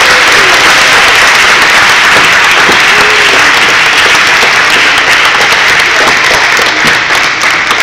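Audience applause filling the hall, dense and steady, thinning out over the last second or so.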